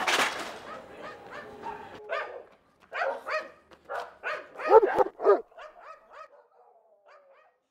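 A brief noisy crash at the start, then a dog barking repeatedly in short barks and yips, about three a second, loudest about five seconds in and fainter towards the end.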